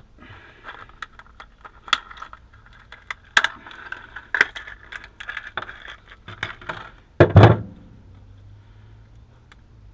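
Small electrical wiring connectors clicking and rattling as they are handled, with one louder thump a little after seven seconds.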